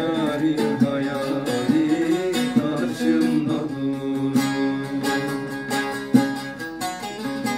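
Bağlama (long-necked Turkish saz) being plucked in a folk melody, with a male voice singing over it for the first few seconds; after that the saz plays on alone in quick, even strokes.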